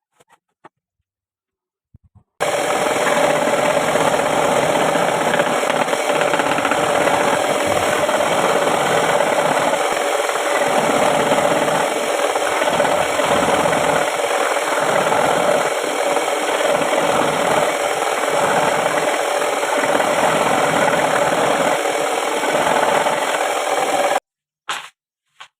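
A power tool working wood, running steadily for about twenty seconds with a constant hum under the cutting noise, then starting and stopping abruptly.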